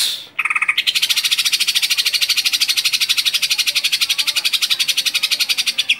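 Male green leafbird (cucak ijo) singing: a loud short note, then a long, very fast, even chattering trill of about a dozen notes a second that lasts about five seconds. This is the long 'ngekek' chatter prized in songbird training and contests.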